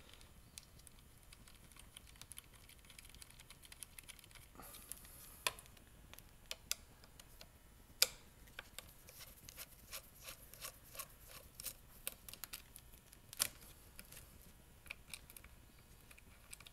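Faint, irregular small clicks and taps of a screwdriver and metal terminal bolts as battery cables are undone at a motorcycle battery's terminals, with two sharper clicks, about halfway through and again past three-quarters.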